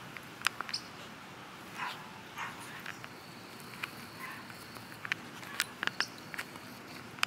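Two dogs, a Saint Bernard puppy and a dark short-haired dog, play-wrestling on grass: scattered short, sharp sounds and brief huffs, with a cluster of sharp sounds about three-quarters of the way through.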